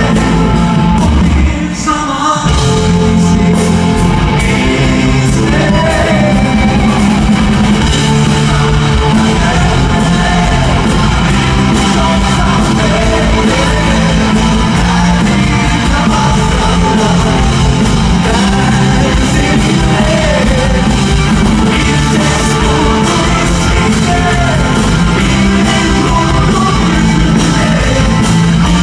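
Live pop-rock band with a male lead singer: drums, bass, electric guitars and keyboards playing loudly, with a brief break in the beat about two seconds in.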